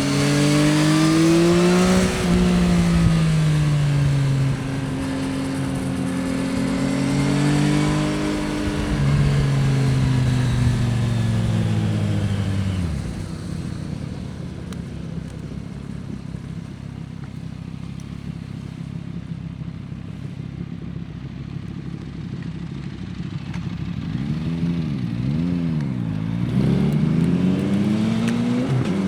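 Yamaha XSR900's CP3 three-cylinder engine being ridden, its pitch rising and falling through the gears. About twelve seconds in it drops off throttle to a quieter low running sound, then near the end gives a few quick revs up and down before pulling hard again.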